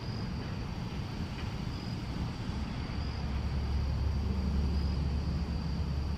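Steady outdoor background noise with a thin, high, even drone. A strong low rumble joins about three seconds in.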